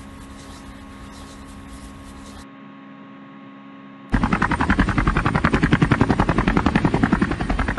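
Low steady electrical hum, then about halfway a much louder rapid pulsing rattle cuts in and keeps going.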